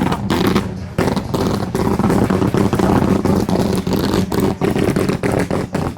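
Nissan 370Z's 3.7-litre V6 being revved hard, the note held high with many brief cut-outs in the sound.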